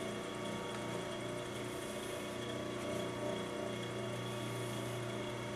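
Steady low hum of a small electric motor running at an even speed.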